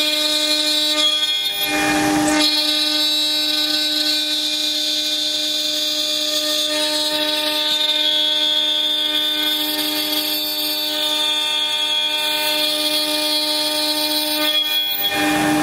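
CNC router spindle milling a 25 mm aluminium block: a loud, steady whine of several level tones. A brief rush of noise cuts in about two seconds in and again near the end.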